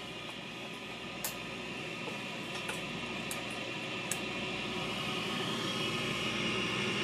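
Steady hiss with a few faint clicks, slowly growing louder.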